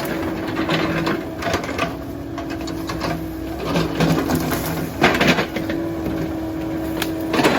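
Cat 308 excavator's diesel engine running under load with a steady hum, with a few sharp knocks about five seconds in and again near the end.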